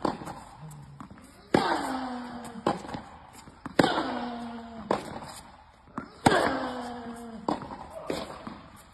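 Tennis racket striking the ball hard three times, about two and a half seconds apart. Each strike comes with a loud grunt from the player that falls in pitch, and it echoes in an indoor hall. Fainter knocks of the ball bouncing and being hit back fall between the strikes.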